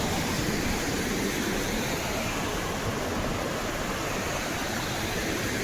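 Waterfall water rushing steadily, an even roar of falling and flowing water.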